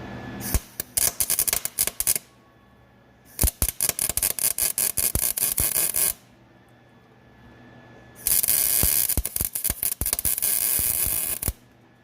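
Arc welder crackling in three bursts of two to three seconds each, with short pauses between, as weld is built up on a broken exhaust manifold stud.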